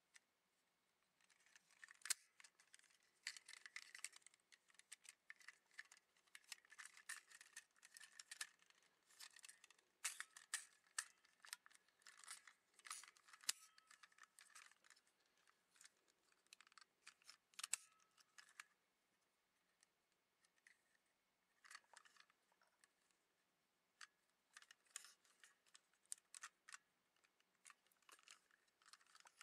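Plastic parts of a Sakura Hurricane Lockvehicle toy clicking, snapping and scraping as it is unfolded by hand from its lock form into a motorbike. The sharp clicks and rustling come in two long stretches with a short pause about two-thirds of the way through.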